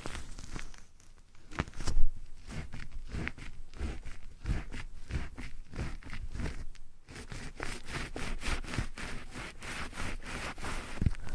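Close-up scratching and rustling right on the microphone, typical of ASMR triggers. It comes as an irregular run of short scrapes several times a second, with one louder knock about two seconds in.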